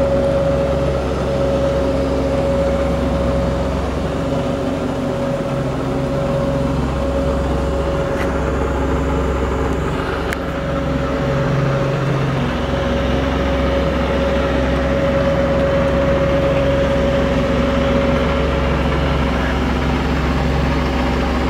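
Bridgeport Series I milling machine's 2 hp three-phase electric motor running steadily, a constant hum with a steady whine above it. A couple of faint clicks come about eight and ten seconds in.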